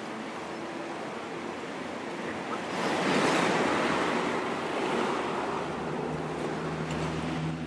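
Sea waves washing on the shore, a steady rushing that swells about three seconds in. A low steady hum joins in near the end.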